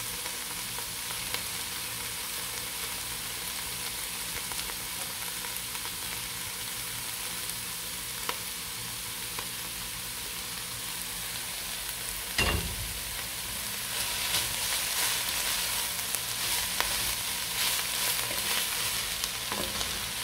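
Chopped spinach and carrots sizzling gently in oil in an enamelled pot. About twelve seconds in there is a single knock, then a wooden spatula stirs and scrapes through the leaves, and the sizzle grows louder and busier.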